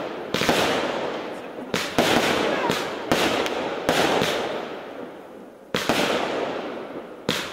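Compound fireworks battery firing aerial shells that burst overhead: about eight sharp bangs at irregular intervals, each trailing off slowly, with a pause of nearly two seconds after the middle before the bangs resume.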